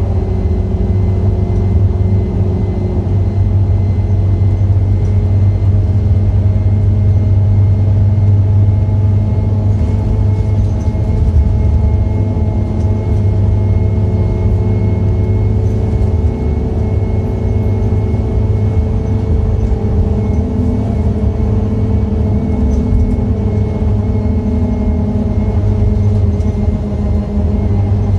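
Scania K230UB bus's diesel engine running steadily as the bus drives along, heard from inside the passenger cabin, with low road rumble and a faint steady high whine.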